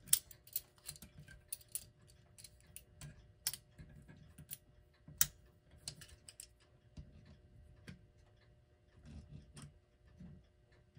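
Irregular small metallic clicks and taps of pliers gripping and twisting a knob off the shaft of a clock movement, a knob that seems threaded rather than friction-fit.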